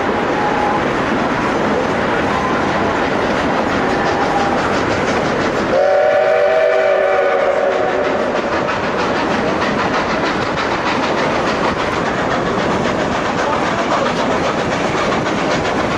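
Narrow-gauge train running, heard from an open car window: a steady rumble with wheels clicking over the rail joints. About six seconds in, the steam locomotive sounds one whistle blast that lasts about two seconds.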